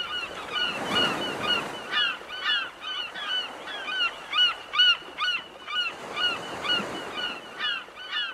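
A flock of birds honking, several short calls a second overlapping one another.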